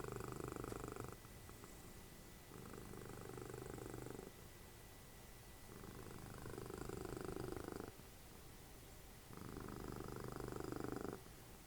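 Domestic cat purring close to the microphone, swelling louder in long stretches of about two seconds with quieter gaps between, four times.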